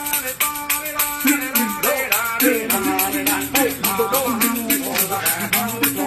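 Music with a steady beat of about four ticks a second and a melody over it.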